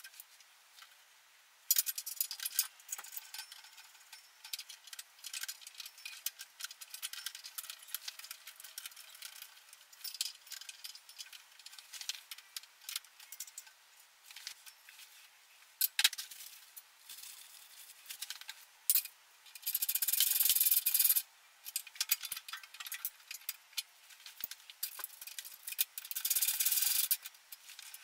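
Small metal parts and hand tools clinking, rattling and scraping as hardware is bolted onto a welding machine setup, with two harsher, steady stretches of about a second each in the second half.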